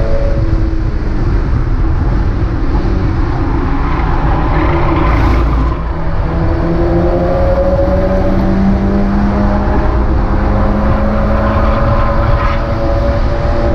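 Mazda MX-5 race car's four-cylinder engine under racing load. The revs drop early on, dip briefly about halfway in, then climb steadily through the second half.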